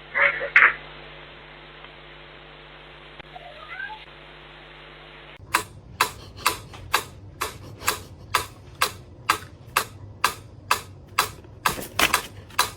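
A cat meows loudly twice at the start and once more faintly about four seconds in. Then a steady series of sharp taps or clicks follows, about two a second.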